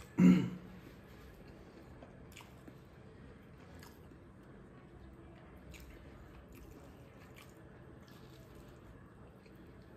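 A person chewing food with the mouth, making faint wet clicks every second or so. A short burst of voice comes right at the start.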